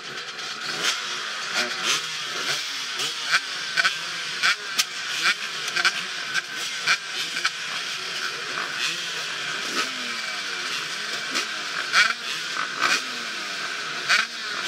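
Several off-road dirt bike engines revving and accelerating together, their pitches rising and falling and overlapping, with frequent sharp cracks through the engine noise.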